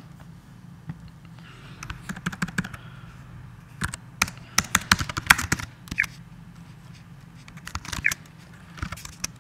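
Computer keyboard keys being typed in three short bursts of clicks, a few seconds apart, as Terminal commands are entered, over a steady low hum.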